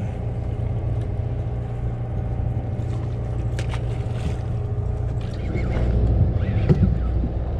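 Sportfishing boat's engine running steadily, a low even drone, with a couple of sharp clicks about halfway through.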